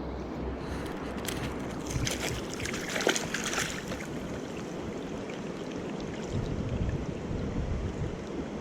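Mountain stream water rushing steadily, with a burst of splashing from about one to four seconds in.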